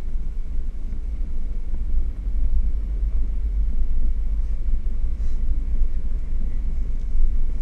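Four-wheel-drive vehicle driving slowly over a rough dirt track, heard from its own hood-view camera: a steady deep rumble of the engine and running gear.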